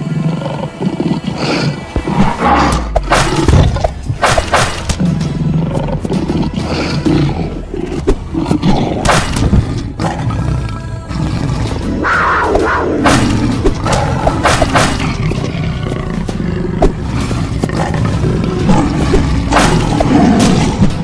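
Background music layered with repeated big-cat roar sound effects and many sharp hits.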